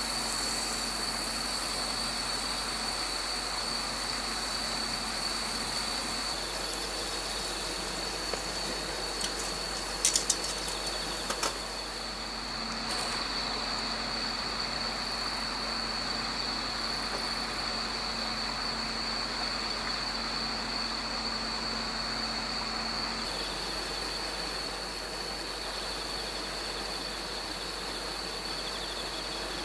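Autumn insects trilling steadily in a high, unbroken tone over a steady sizzle of meat on a small charcoal grill. A few sharp clicks come about ten seconds in.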